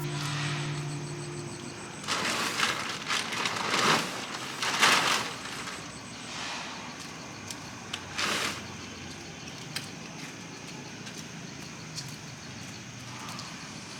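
Steady hiss of a rainy night outdoors, with several swells of rushing noise about two to five seconds in and once more around eight seconds. A low steady hum carried over from before fades out about a second and a half in.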